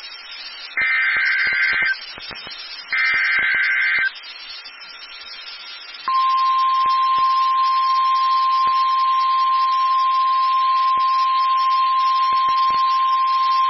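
Emergency Alert System broadcast over weather radio: two one-second bursts of warbling SAME header data tones, then, about six seconds in, the steady single-pitch NOAA Weather Radio warning alarm tone (1050 Hz), which marks the start of a warning. Radio hiss with scattered static clicks runs underneath.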